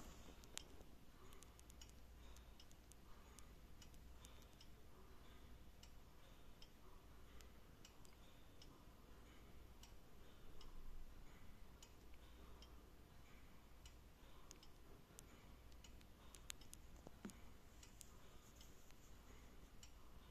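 Faint, quick ticking of a mechanical clock in a quiet room, over a low steady hum.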